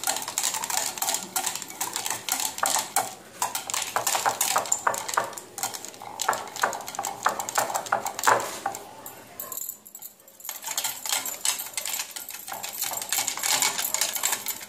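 Stainless steel wire whisk beating curd and ice cubes in a ceramic bowl: a fast, continuous clatter of clicks as the wires strike the bowl. It stops briefly about two thirds of the way through, then resumes.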